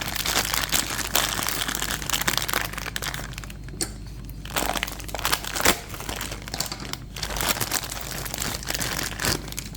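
Packaging crinkling and rustling as small wrapped pieces are unwrapped by hand, with a brief lull about four seconds in.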